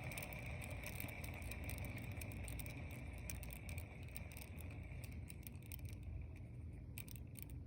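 Heavy rain pouring down: a steady hiss with many separate drops ticking through it, thinning out over the last couple of seconds.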